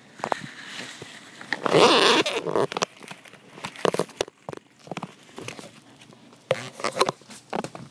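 A cat clawing and rubbing at a carpet-covered scratching post dusted with catnip: irregular scratching, rustling and clicks, with a louder rasping burst about two seconds in.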